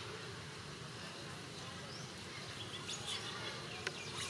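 Faint outdoor background: a steady, even hiss, with several short, high chirps or squeaks from about three seconds in.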